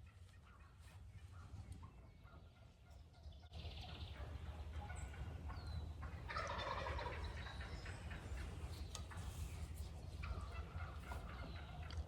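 Wild turkey gobbling, the loudest gobble about six seconds in, with quieter calls before and after it.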